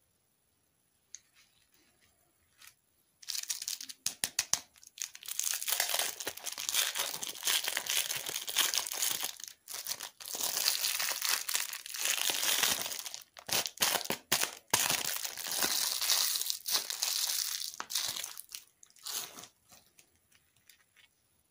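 Clear plastic lollipop wrapper being peeled and pulled off, crinkling densely for about fifteen seconds after a quiet start, then a few small crackles near the end.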